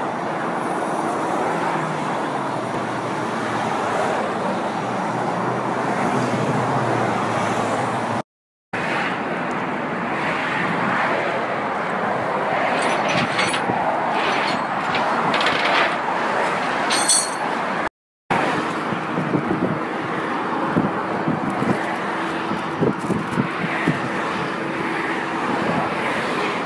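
Steady highway traffic noise, with road noise from passing cars, broken off twice by short gaps. In the last part a steady hum runs under the traffic.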